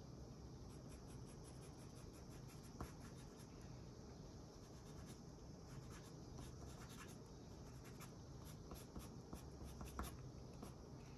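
Colored pencil scratching across drawing paper in quick, irregular shading strokes, faint.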